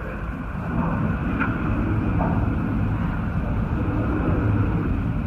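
Hurricane wind blowing hard: a steady low rush that gets louder about a second in.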